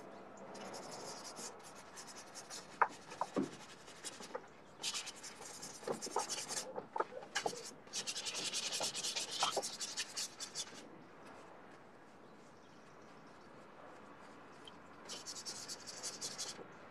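Paintbrush scrubbing paint onto a stretched canvas in four spells of brisk strokes, the longest about three seconds, with quieter pauses between them.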